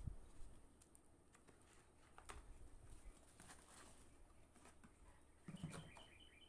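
Faint scattered clicks and light taps, like packaging being handled. Near the end a bird starts a quick run of short high chirps, about six a second.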